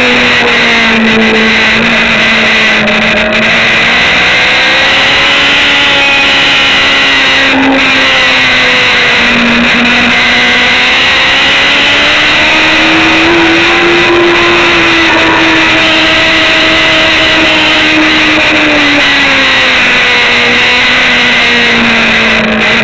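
Sport motorcycle engine running hard at race pace, heard from an onboard camera. Its pitch climbs gently about ten seconds in, holds, then drops back a few seconds later as the rider works the throttle through corners, over a constant rush of noise.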